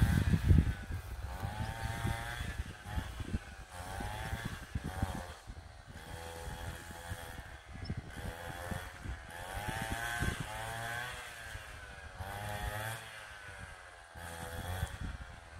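Small petrol engine running off to one side, its pitch rising and falling over and over as it speeds up and slows down.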